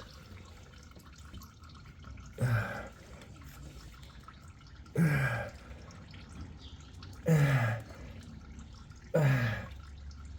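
Four straining grunts, each falling in pitch and about two seconds apart, from a person twisting a tight engine oil filter loose by hand without a filter wrench.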